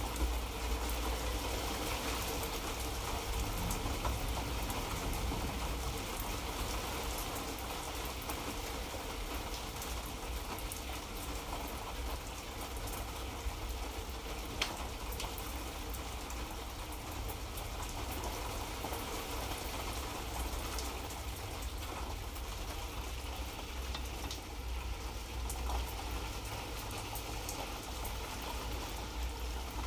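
Light rain falling steadily: an even hiss of drops with scattered individual drop ticks and one sharper tick about halfway through, over a steady low rumble.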